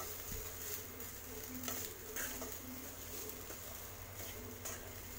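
Spatula stirring cooked rice in a metal kadai, giving scattered light scrapes and taps against the pan over a low steady hum.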